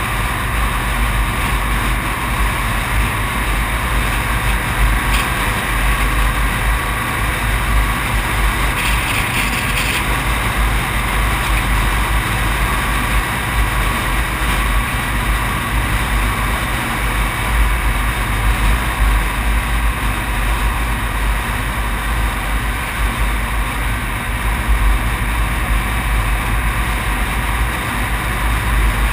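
Steady rush of wind and road noise picked up by a camera mounted outside a moving vehicle driving along a highway, with a heavy low rumble throughout.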